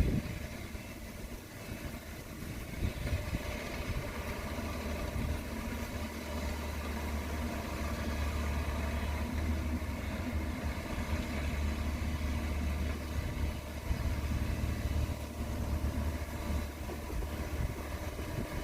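A vehicle engine running with a steady low rumble that grows stronger about five seconds in and eases off near the end.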